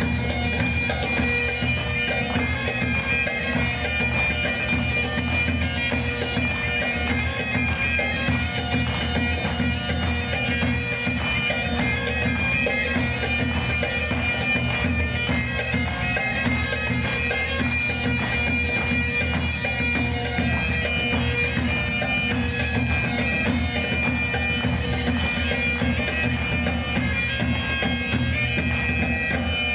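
Highland bagpipes playing a hornpipe tune for dancing, the steady drones sounding under the chanter's melody.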